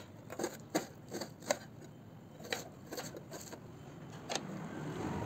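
Kitchen knife chopping a red onion on a steel plate: sharp taps of the blade striking the metal, four in quick succession, then a few more spaced out over the next few seconds.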